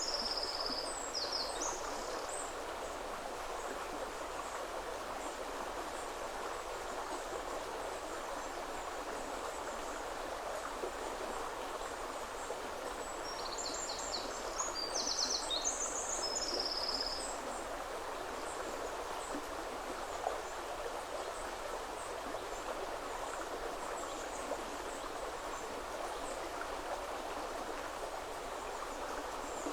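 Woodland river flowing steadily over its bed, a constant rushing of water. A small songbird sings a short, high, quick phrase right at the start and again about halfway through.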